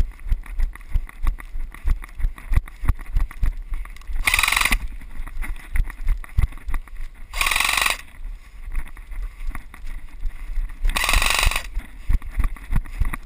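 Irregular low thumps of footsteps and movement jostling a worn action camera, with three short rushes of hiss a few seconds apart.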